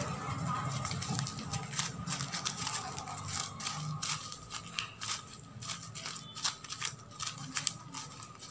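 Newspaper crinkling and crackling in the hands as a rolled sheet is crumpled and bent, a run of quick irregular crackles.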